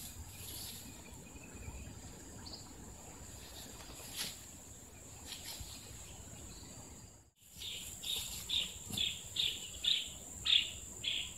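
Insects and birds: a steady high insect drone with scattered chirps. After a brief break about seven seconds in, a run of evenly spaced chirps follows, about three a second.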